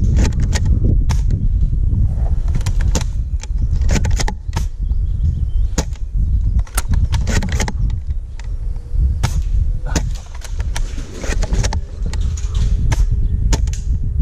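Airsoft gunfire: sharp snaps and clicks, many of them and irregularly spaced, over a heavy low rumble.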